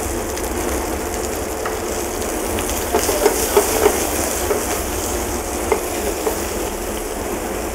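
Shrimp and julienned vegetables sizzling in olive oil in a sauté pan over a gas burner, with a few light clicks of the stirring utensil against the pan around the middle.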